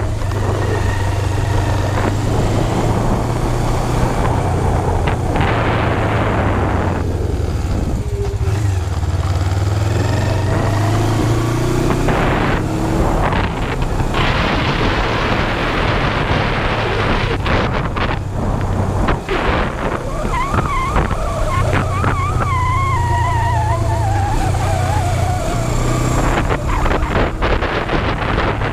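Kawasaki GPz250 Belt Drive's parallel-twin engine running steadily while riding, with wind rushing over the microphone. A wavering tone falls in pitch for several seconds in the second half.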